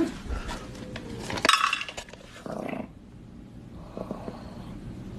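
A dog vocalizing in several short sounds, the loudest about a second and a half in.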